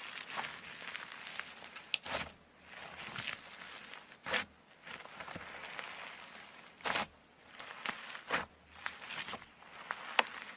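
Slime being squeezed and worked by hand: a steady sticky crackle broken by sharp pops and snaps, a few of them louder, about every two seconds.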